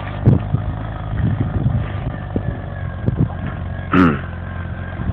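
Engine of a homemade all-terrain vehicle running steadily under load as it drives through deep snow, with scattered knocks and a brief sharp sound with falling pitch about four seconds in.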